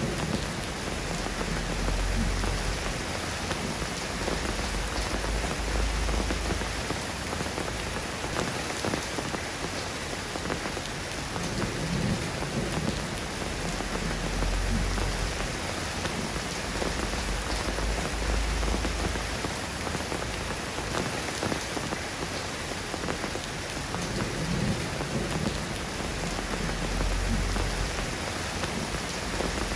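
Steady rain pattering on a surface as a dense, even hiss, with a low rumble that swells and fades several times.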